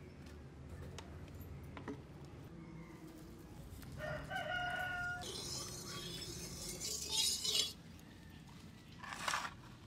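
A rooster crows once, about four seconds in, followed by a couple of seconds of loud hissing noise and a short burst of noise near the end.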